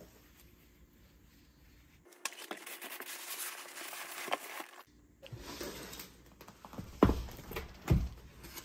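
A cardboard box and its packaging being opened and handled: rustling, tearing and scraping, with two dull thumps near the end.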